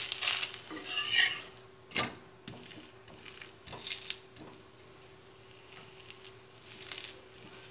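Steel spatula scraping and tapping on a cast-iron griddle under a cooked wheat roti. A sharp clack comes about two seconds in, followed by a few lighter taps, and then it goes faint.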